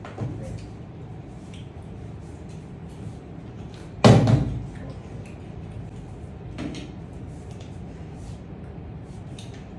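A single sharp thud about four seconds in, with a short ring after it, over faint room noise and a few light ticks.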